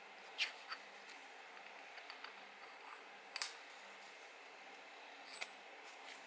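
A few light metallic clinks, about four spread out, as a machined aluminium block and plate are handled and set in a milling-machine vise, over faint steady background noise.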